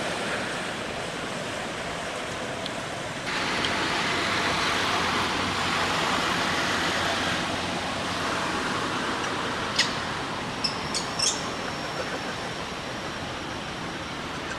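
Steady outdoor background noise that gets louder about three seconds in, with a few short, sharp, high-pitched chirps or squeaks about ten to eleven seconds in.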